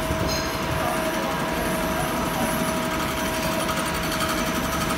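CNC turning centre running with its spindle at 1000 rpm while a boring tool takes a facing cut across the end face of the workpiece: a steady machine hum with a constant mid-pitched whine.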